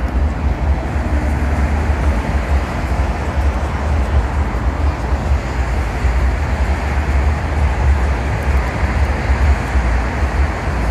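Steady road traffic noise: a continuous low rumble of passing vehicles with no separate events.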